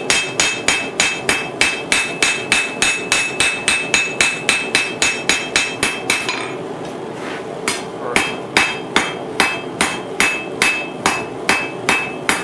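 Blacksmith's hand hammer striking the red-hot end of a 10 mm steel rod on an anvil, flattening it out for a spoon bowl. The blows are even, about four a second, with a high ring carrying between them. They stop for about a second and a half some six seconds in, then resume at the same pace.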